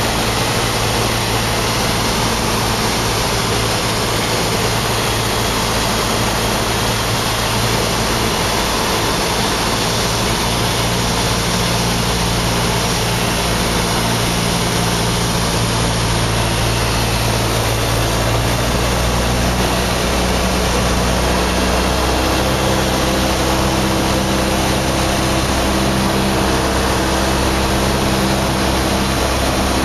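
A Cessna 172's piston engine and propeller heard from inside the cabin in flight: a loud, steady drone. The engine note changes about two-thirds of the way through.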